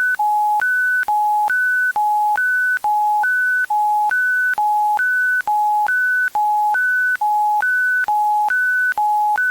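Electronic two-tone emergency alert signal: a low and a high pure tone alternating in a steady hi-lo pattern, each tone lasting about half a second with a short break between.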